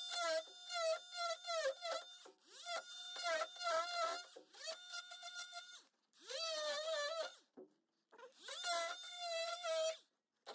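Oscillating multi-tool buzzing as it cuts away excess cured Bondo body filler on a fiberglass hood, its pitch repeatedly sagging and recovering as the blade loads up. It runs in three spells with two short stops, starting again right at the end.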